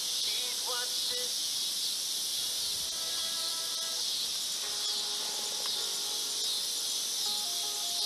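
Steady chorus of insects in a field, an even high-pitched hiss that never lets up. Faint short whistled notes come and go beneath it.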